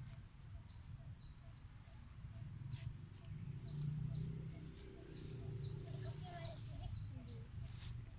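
A bird calling steadily, a regular series of short, falling chirps about two a second, over a low rumble.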